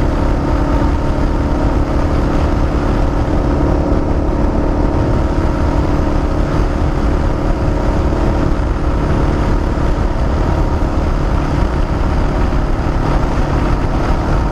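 Motorcycle engine running steadily at highway cruising speed, mixed with wind and road noise.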